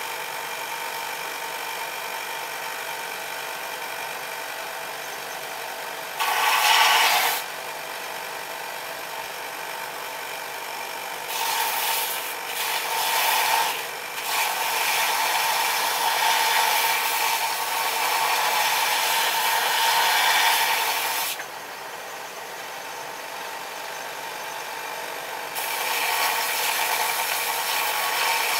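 Belt grinder running with a steady hum while steel is pressed against the coarse belt in about four grinding passes, the longest lasting several seconds.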